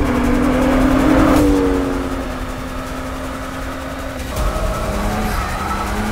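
BMW M2 Coupé's turbocharged straight-six engine running hard at fairly steady revs while the car drifts, over the hiss of spinning tyres. The engine note changes abruptly twice, at cuts between shots.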